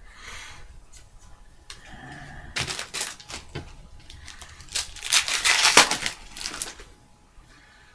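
Trading cards and their packaging being handled: quick clicks and flicks of cards, with a louder stretch of rustling about five seconds in.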